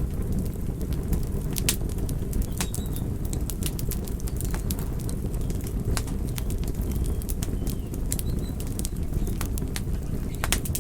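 Wood fire in a fireplace crackling, with sharp irregular pops over a steady low rumble of burning.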